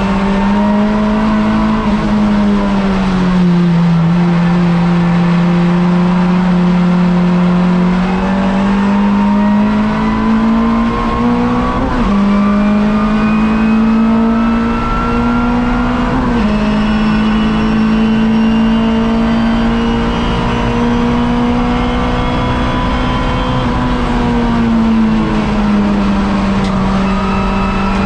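Hot hatch race car's engine heard from inside the cabin, running hard at high revs. The pitch sags a few seconds in, then climbs and drops abruptly twice, at gear changes about 12 and 16 seconds in, and eases off again near the end.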